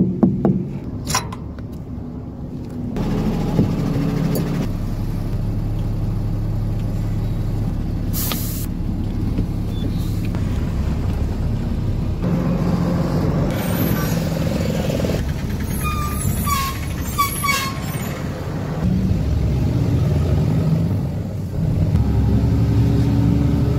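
A heavy truck's diesel engine running, with a few sharp knocks at the start as a tyre is struck with a rod to check it. The engine then carries on steadily as the truck is driven, with a short air-brake hiss about eight seconds in and more hisses and squeaks in the middle.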